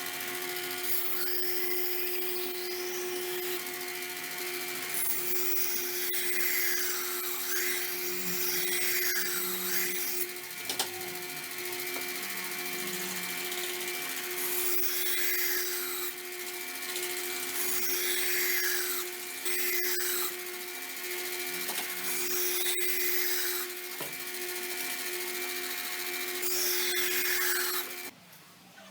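An electric power tool running with a steady hum, with repeated passes of abrasive grinding or rubbing as the work is pressed against it. The tool stops suddenly near the end.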